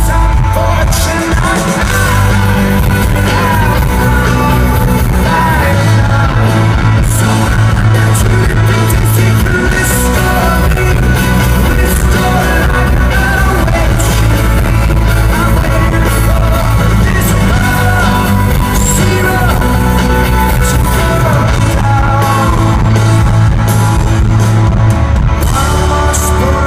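Rock band playing live through a loud PA, with a sung lead vocal over bass and drums.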